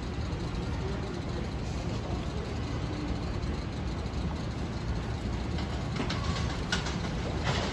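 Pullman Standard R46 subway train approaching along the track: a steady low rumble that slowly grows louder, with a few sharp clicks near the end.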